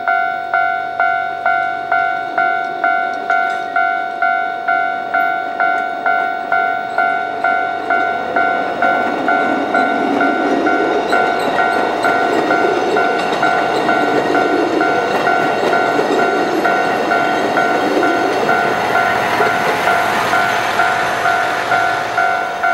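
Japanese level-crossing warning bell ringing about twice a second. From about eight seconds in, a maintenance motor-car train hauling rails rumbles over the crossing; the rumble swells and then eases near the end.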